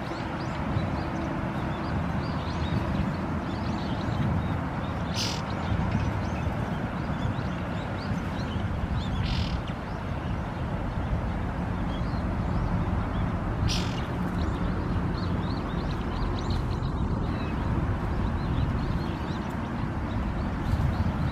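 Many short bird chirps scattered over a steady low rumble, with three brief sharper sounds about five, nine and fourteen seconds in.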